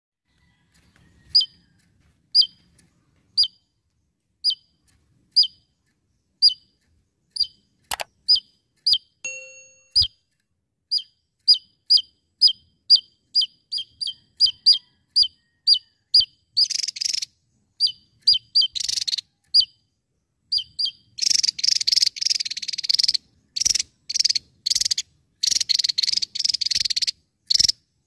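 Javan tesia singing vigorously. It gives sharp high single notes about once a second, which come faster and faster, then breaks into long, loud, buzzy rattling trills through the second half. Two faint clicks sound near the middle.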